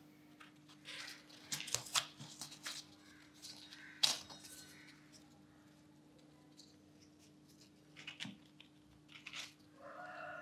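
Soft, dry rustling and light taps of chapatis being handled and laid onto a ceramic plate, with a sharper click about four seconds in.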